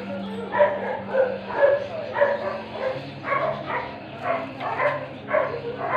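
A dog barking repeatedly at a steady pace, about two barks a second.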